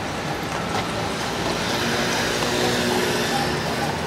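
Steady vehicle traffic noise, with an engine note swelling in the middle as a motor vehicle passes.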